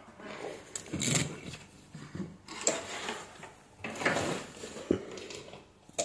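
Handling noises from multimeter test leads and cords being picked up and moved on a workbench: a few irregular knocks and rustles.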